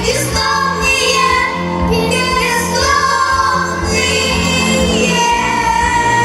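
A song sung over instrumental accompaniment, with female or child voices carrying the melody.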